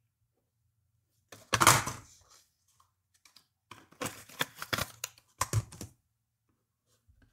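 Handling noise from a cardboard box and a clear plastic Raspberry Pi case. A short, loud rustle comes about a second and a half in, then a run of rustling and light clicks and knocks between about 4 and 6 seconds.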